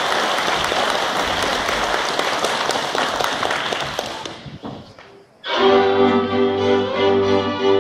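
Applause fades away over the first few seconds. After a brief hush, a folk string band of fiddles, a bowed double bass and an accordion strikes up a Christmas carol.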